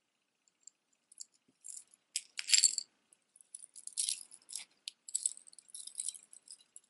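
Metal necklace chains and charms jingling and clinking as they are handled, in scattered bursts starting about a second in, the loudest about two and a half seconds in.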